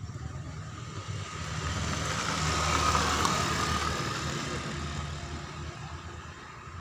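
A motor vehicle passing by: a low engine rumble and road noise that swell to a peak about three seconds in, then fade away.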